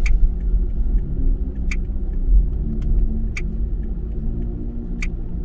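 Car driving along a city street: a steady low rumble of engine and tyres, with a sharp click repeating about every second and a half.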